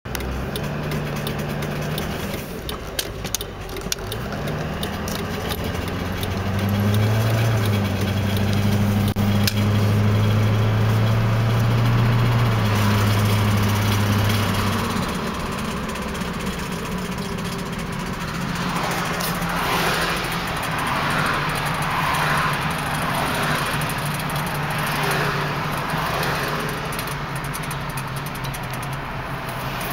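2001 GMC Duramax pickup's diesel engine running, its pitch stepping up about six seconds in, holding, then dropping back between thirteen and fifteen seconds. A few sharp clicks come early on, and a rougher, noisier sound sits over the engine in the second half; this is the unusual noise the owner is concerned about.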